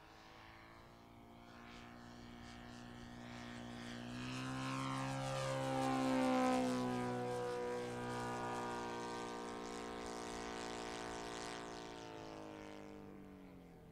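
Saito FG57TS four-stroke twin-cylinder petrol engine turning the propeller of an RC aerobatic biplane in flight. It grows louder to its loudest about six seconds in as the plane passes nearest, its pitch falls as it goes by, and it then fades away.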